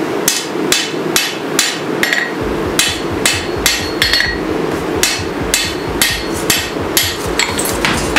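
Hammer striking hot 5160 steel on an anvil while forging a sword blade: a steady run of ringing blows, about two and a half a second, over a steady background noise.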